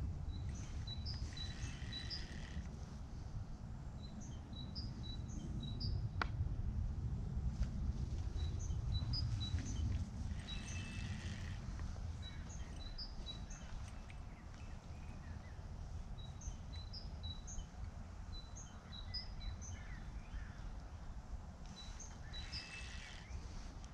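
Wind rumbling on the microphone, with a small songbird singing short, high chirping phrases that repeat every few seconds. One sharp click comes about six seconds in.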